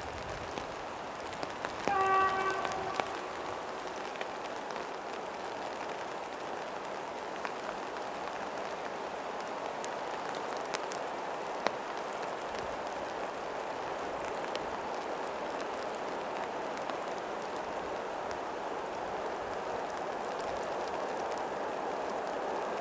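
ST44 (Kolomna M62) diesel locomotive sounding its horn once, about two seconds in, for roughly a second. Steady rain noise runs underneath while the approaching locomotive slowly grows louder.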